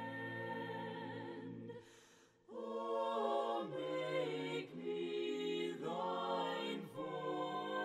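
Soft background music of a choir singing a cappella in held chords. It breaks off briefly about two seconds in, then a new phrase begins with the chords changing every second or so.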